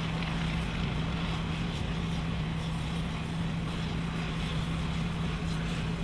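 Heavy construction machinery running steadily: an even engine drone with a constant low hum.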